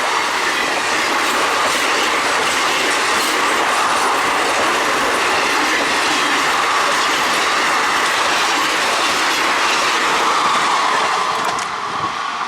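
A train running past close by on a curve: a loud, steady rush of steel wheels on the rails with faint clicks and a squeal from the wheels on the curve. It eases off slightly near the end.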